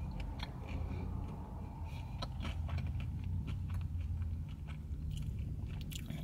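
A person chewing a crispy thin-crust pepperoni pizza edge, a run of short crunches throughout, over a low steady rumble.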